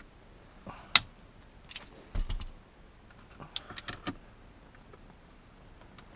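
Scattered sharp metal clicks and clinks of a socket and Torx bit being fitted to the seatbelt buckle's mounting bolt, with a short dull thump a little after two seconds and a quick run of clicks near four seconds.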